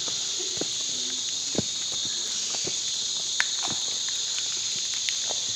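Steady high-pitched drone of a tropical forest insect chorus, with scattered footsteps and small knocks on rock as someone walks over a cave path; one sharper click a little past halfway.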